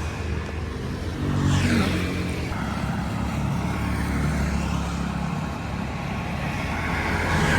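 Street traffic: motor vehicle engines running steadily, with a vehicle passing about one and a half seconds in.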